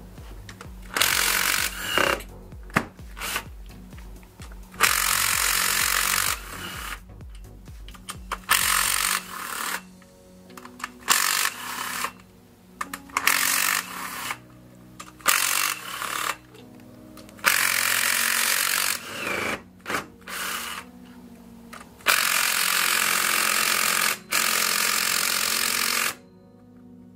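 Cordless impact driver running in more than a dozen short bursts, half a second to two seconds each, as it loosens the camshaft bearing-cap bolts one after another on a Hyundai 1.8 Nu engine. Background music runs underneath.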